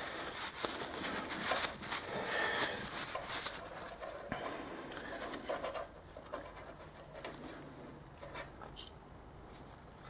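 A rag rubbing and scrubbing over the front brake caliper pistons, with small clicks of the caliper being handled. It goes quieter about halfway through, leaving a few light clicks.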